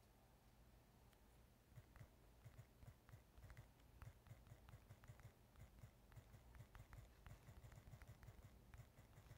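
Faint, irregular tapping from typing on a smartphone's touchscreen keyboard, several taps a second, starting about two seconds in, over a faint low hum.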